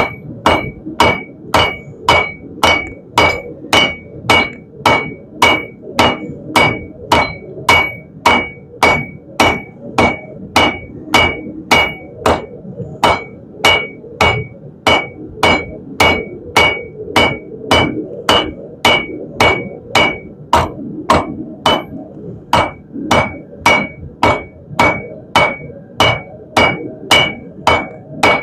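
Hand hammer striking a red-hot steel bar on an anvil in a steady rhythm of a little under two blows a second, each blow ringing briefly, with short pauses about twelve and twenty-two seconds in: forging a taper into the end of the bar.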